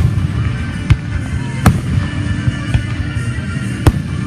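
Fireworks going off: several sharp bangs at irregular intervals over a steady rumble of other bursts.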